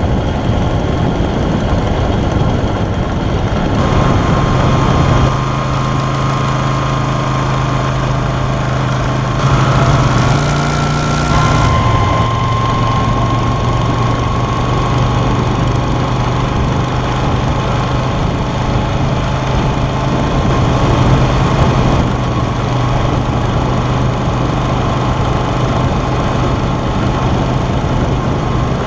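Yamaha Virago XV250's small air-cooled V-twin engine running while riding, over a rush of wind. The engine note shifts a few times in the first twelve seconds, drops about twelve seconds in, and then holds steady.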